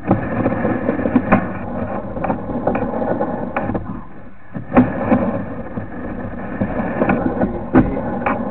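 Sewer inspection push camera being fed down a plastic drain pipe: the push cable rattles steadily as it advances, with irregular sharp knocks as the camera head strikes the pipe walls.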